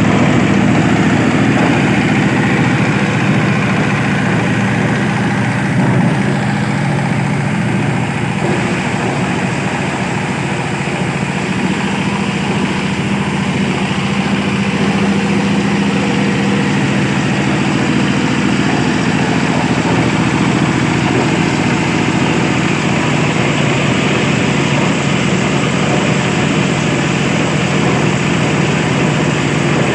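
Engine-driven compost machine running steadily, with a continuous even hum.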